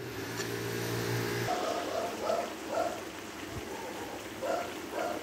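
Adobo sauce boiling in a frying pan, bubbling in soft repeated blips about twice a second. A low steady hum runs for about the first second and a half, then stops.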